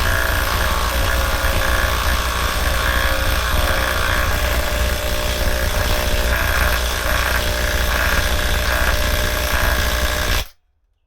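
Compact half-inch cordless impact wrench hammering continuously as it drives a half-inch lag screw into wood, stopping suddenly near the end as the trigger is released.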